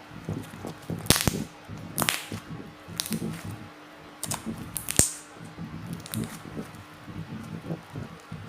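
Sticky basic slime being squeezed and folded by hand, letting off sharp air-bubble pops about once a second, the loudest a little after one second in and again about five seconds in.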